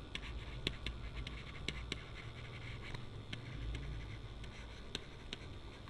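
Faint, irregular taps and scratches of a stylus writing on a pen tablet, over a low steady hum.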